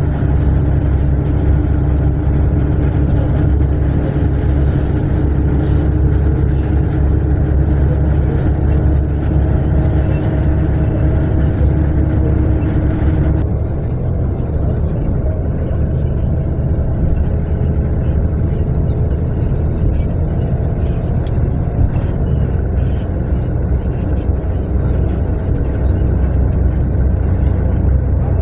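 Steady rumble of a natural-gas-powered air-conditioned bus under way, its engine and road noise heard from inside the cabin. About halfway through, the sound suddenly turns duller as the higher hiss drops away.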